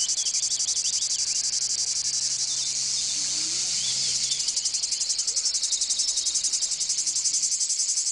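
Loud chorus of insects singing in rapid, even pulses that blend into a steadier buzz for a moment midway, with a few faint bird chirps.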